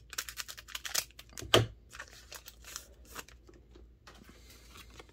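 Scissors snipping open a foil trading-card booster pack, with crinkling of the foil wrapper and a sharp snip about a second and a half in, then a softer rustle of cards being handled near the end.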